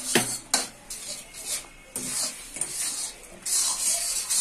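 Steel spatula scraping and stirring a thick gram-flour and water mixture around a metal kadhai, in irregular strokes, with a couple of sharp clacks of the spatula against the pan near the start. The mix is kept moving as it cooks so that no lumps form.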